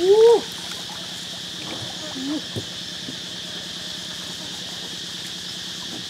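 A woman's short surprised "ooh" at the start, rising then falling in pitch, and a quieter one about two seconds in, over a steady high drone of insects. Water drips and trickles off a bamboo fish trap being lifted out of the water.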